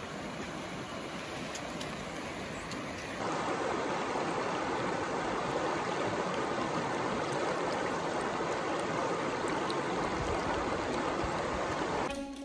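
Shallow, fast stream rushing over rocks, recorded just above the water surface; it gets louder about three seconds in and then holds steady.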